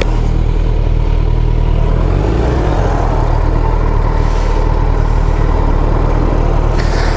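Motorcycle engine running at low revs while rolling slowly: a steady low drone whose note shifts slightly about two and a half seconds in.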